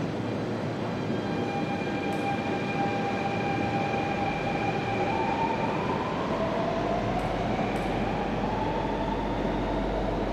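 Shanghai Metro Line 10 train (type 10A02) approaching the station unseen in the tunnel: a steady rushing rumble with whining electric-motor tones that shift in pitch, and a deep low rumble joining about halfway through.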